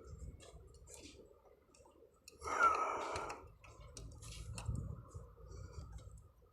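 Scattered clicks of hand tools against metal parts, with one louder clatter about two and a half seconds in.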